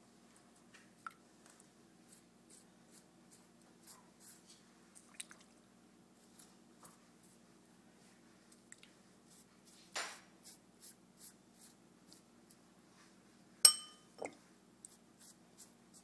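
Pastry brush dabbing and stroking egg wash onto a pie crust: soft, scattered wet dabs and light ticks, with a longer brushing swish about ten seconds in and a sharp tap with a brief ring a few seconds later. A steady low hum runs underneath.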